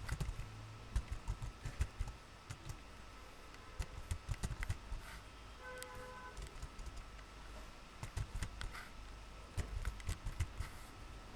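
Computer keyboard being typed on in short bursts of clicking keystrokes, with pauses between the bursts.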